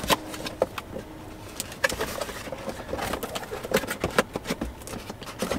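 Cardboard packaging box being handled: an irregular string of crinkles, taps and scrapes as paper and card are pushed into it.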